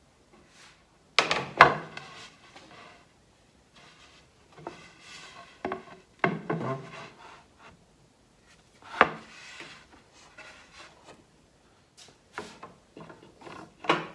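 Wooden table parts being handled and fitted together: a few sharp knocks as pieces are set down, with wood sliding and rubbing against wood between them. The loudest knocks come about a second and a half in and again about nine seconds in.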